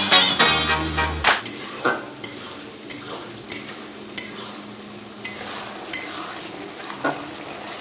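Background music for about the first second. Then a spoon stirs and scrapes in a metal pan of frying masala, with scattered sharp clinks of metal on metal over a faint sizzle.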